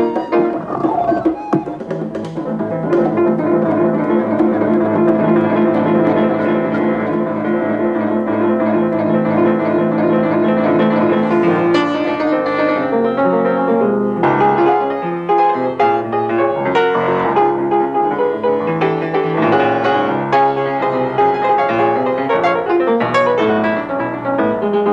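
Instrumental film score led by piano: held chords for about twelve seconds, then quicker separate notes with light percussion.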